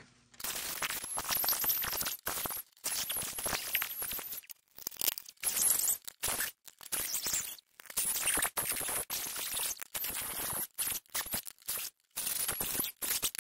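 Hard orange plastic being cut and scraped out of the inside of a Nerf battery tray, a choppy, scratchy noise in short stretches broken by brief silent gaps.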